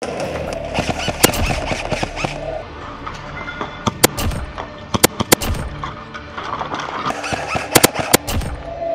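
Airsoft guns firing: a series of sharp snaps in short groups of two or three. A steady droning tone sounds under the first couple of seconds.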